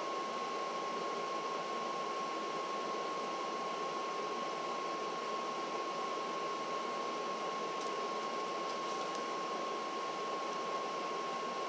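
Steady room noise: an even hiss with a constant high whine, like a fan or air conditioner running. A few faint clicks come about eight seconds in.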